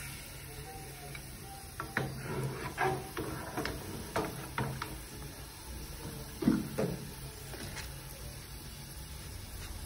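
Kitchen utensils and pots being handled: a run of knocks and clinks over several seconds, the loudest about six and a half seconds in, over a steady low hum.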